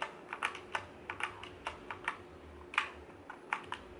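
Keys clicking as they are pressed on a Redragon Draconic K530 60% mechanical keyboard, in irregular, scattered presses, a few a second.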